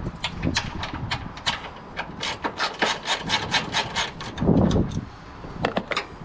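Hand ratchet clicking in quick, even runs, about seven clicks a second, as a half-inch bolt is loosened, with one louder dull thump a little past the middle.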